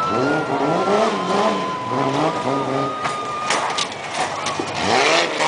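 Jeep Cherokee's engine revving up and dropping back again and again as the truck is driven hard over a rough dirt course, with a few sharp knocks and bangs late on.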